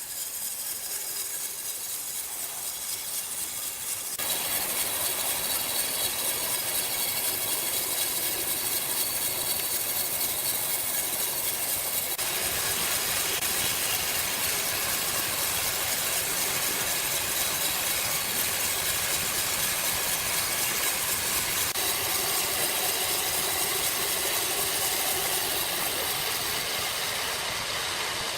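Sawmill machinery running steadily with a faint high whine, getting louder about four seconds in.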